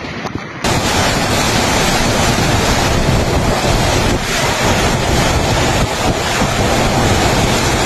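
Typhoon wind and heavy driving rain, loud and steady, with the gusts buffeting the microphone. The sound cuts in sharply less than a second in, after a short, quieter stretch.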